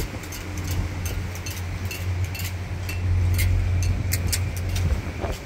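Wind buffeting the microphone, a steady low rumble, with many light irregular clicks and clinks over it.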